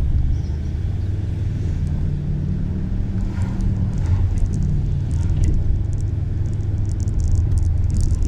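An engine or motor running steadily with a low, even drone.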